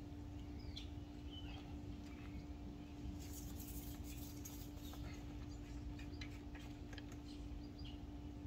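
Faint outdoor ambience: a steady low hum, a few small bird chirps in the first couple of seconds, and scattered clicks and rustles as a metal pool pole is handled in the middle.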